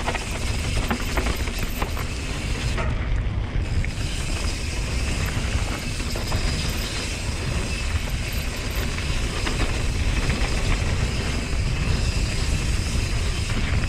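Mountain bike descending a dry dirt trail at speed: wind buffeting the microphone in a steady heavy rumble, tyres rolling over dirt and gravel, and small rattles from the bike over bumps.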